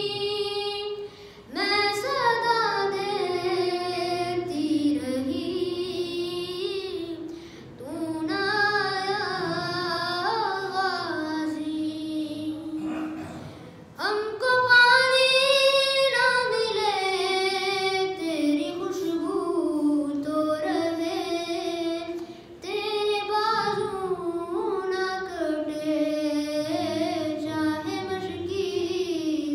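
A boy's solo voice singing an unaccompanied melodic chant into a microphone, in long flowing phrases broken by short breaths about every six seconds.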